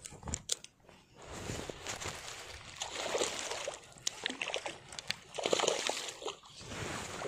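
Shallow water sloshing and splashing in irregular bursts.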